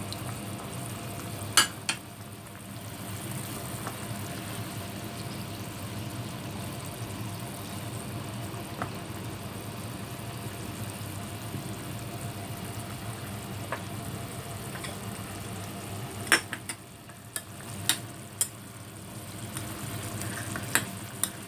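Mapo tofu sauce with ground meat sizzling steadily in a pan as tofu cubes are added and stirred with a spatula. A few sharp knocks of utensils against the pan: two about a second and a half in, and a cluster near the end.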